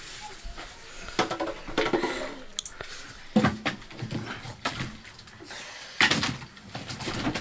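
Metal dishes and utensils being handled in a kitchen: several sharp clinks and clatters, some ringing briefly.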